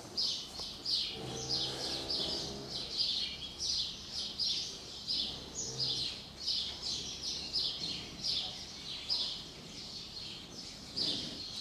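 A steady run of short, high-pitched chirps, two or three a second, from a small animal.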